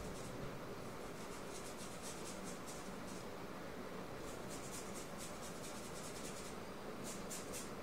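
Paintbrush scrubbing and dabbing paint onto a painting surface: quick, scratchy brush strokes, several a second, in runs with short pauses between them.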